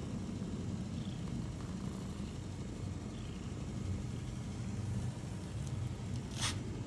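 Steady low rumble with a sharp click about six and a half seconds in.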